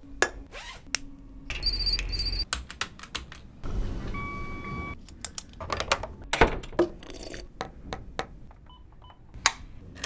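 A quick run of office sounds cut together: sharp clicks and taps, a desk telephone's pulsing electronic trill, a steady beep of about a second, and two short beeps near the end, with keyboard-like tapping among them.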